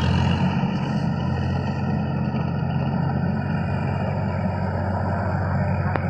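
Sonalika DI 50 RX tractor's diesel engine running steadily under load, a low even drone, as it tills a flooded paddy field.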